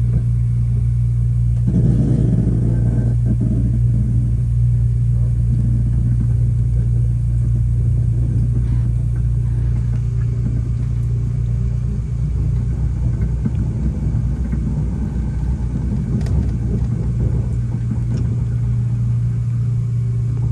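Amtrak Cascades passenger train running, a loud steady rumble with a low hum, heard from inside the passenger car.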